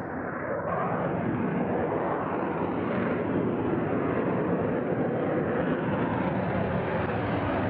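Su-35 fighter jet's engines heard in flight: a loud, steady jet noise with no distinct tones, stepping up slightly just under a second in.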